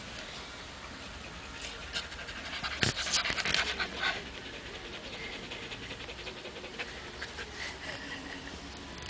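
Siberian husky panting steadily, close to the microphone, with a burst of rustling and clicks around three to four seconds in.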